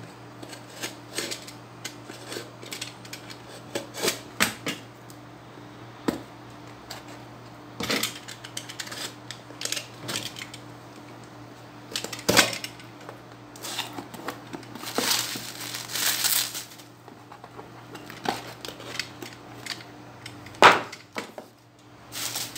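A small cardboard parcel is opened by hand with a snap-off utility knife: scattered clicks, blade scrapes and tape tearing, with a longer crinkling rustle of plastic bubble wrap about fifteen seconds in. A single sharp knock comes near the end.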